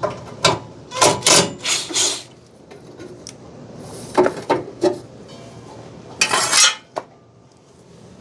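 Metal clanking and rattling as parts of a pellet grill and tools are handled: several short knocks in clusters, then a half-second scrape and a last click near the end.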